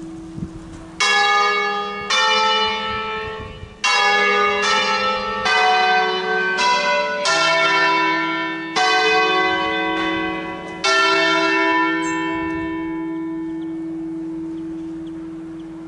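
Five-bell ring of church bells in E, cast by Ottolina of Seregno, swung and striking about nine notes one after another in an uneven melodic sequence (the Lombard 'concerto solenne'). The last strokes ring on and fade slowly, with a steady low hum under them.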